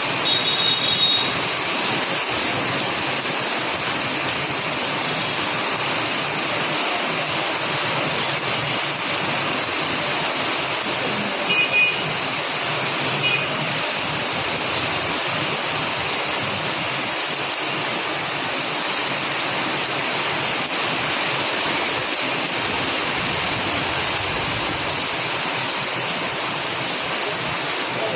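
Steady rushing of water in a heavy downpour, an even hiss that does not let up. Short high chirps come briefly about a second in and again about twelve seconds in.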